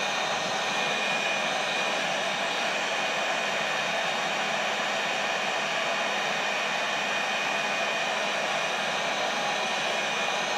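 Electric heat gun running steadily, blowing hot air onto freshly applied 20-minute setting-type drywall joint compound to speed its cure. A constant rush of air with a faint steady high tone in it.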